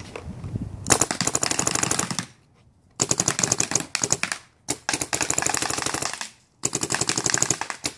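Dye DM14 and Dye DM13 electronic paintball markers fired alternately in rapid bursts. There are four bursts of rapid, evenly spaced shots, each about a second and a half long, with short pauses between them.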